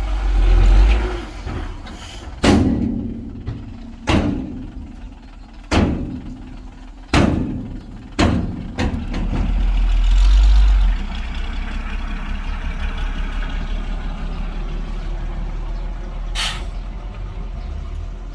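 Heavy diesel construction machinery running, its engine swelling twice, with about seven loud sharp bangs, most of them in the first half.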